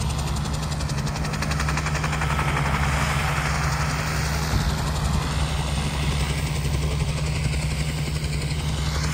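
Helicopter running: a steady low drone of engine and rotor, with a rush of noise that swells and fades over the middle few seconds.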